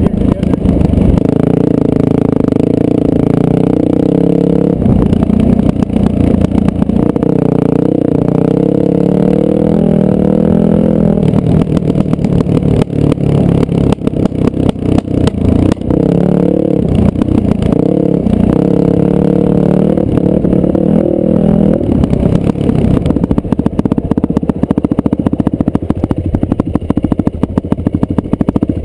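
Dirt bike engine running hard along a sandy trail, heard from on board, its note rising and falling as the throttle is worked. It settles to a lower, rougher note near the end.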